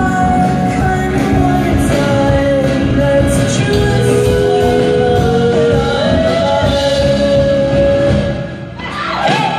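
Live rock band playing with electric guitars and sung vocals, heard from the crowd in a club, with long held sung notes. Near the end the music drops back briefly before the full band comes in again.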